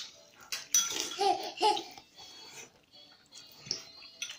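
Laughter in a couple of short bursts about a second in, then quieter.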